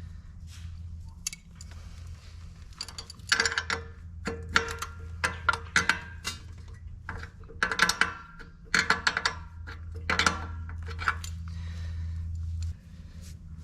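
Wrench and socket clinking and clicking on the ATV's chain adjuster bolts as they are loosened: irregular sharp metallic clicks with a short ring, over a low steady hum that stops near the end.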